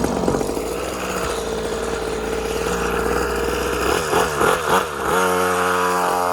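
A 50cc two-stroke mini moto engine idling steadily, then blipped a few times about four seconds in, and held at higher revs from about five seconds in.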